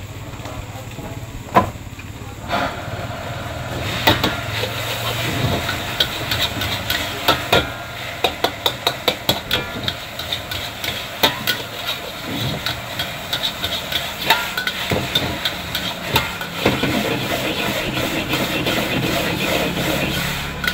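Food sizzling in a hot wok, with a metal spatula clanking against the wok again and again as it is stirred and tossed, at times two or three strikes a second, over a steady low hum. The sizzling starts about four seconds in, after a couple of single clanks.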